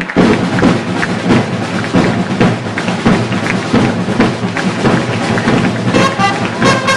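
Drums playing a busy, driving rhythm. About a second before the end, brass instruments join in with held notes.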